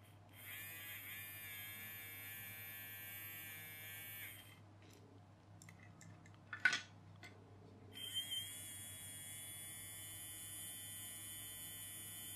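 Small brushed DC toy motor, its bearing freshly oiled, running with a steady high whine on a single AA battery through crocodile-clip leads. It runs about four seconds and stops, a lead clicks against the battery, then about eight seconds in it starts again, rising in pitch as it spins up, and runs on steadily.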